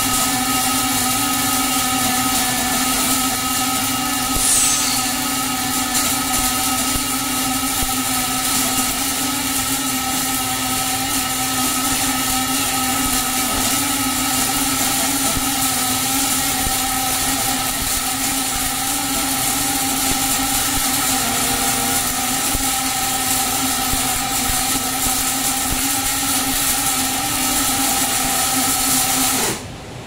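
Robotic arc welding of a water heater tank seam: a steady hiss and crackle from the welding arc over a constant hum. It cuts off suddenly just before the end as the arc is extinguished.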